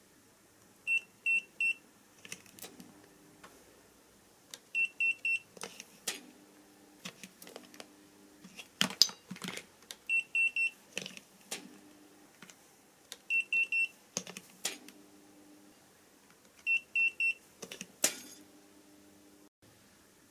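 Digital clamp meter beeping in quick triple beeps, five times, about every three to four seconds. Between the beeps a variac is plugged into mains over and over, each time with a click and a short burst of low transformer hum as the inrush current flows.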